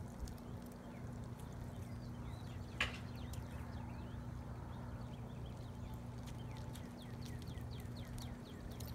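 A young German Shepherd chewing and mouthing a raw chicken drumstick on pavement: soft intermittent chewing and tapping, with one sharp click about three seconds in, over a steady low hum.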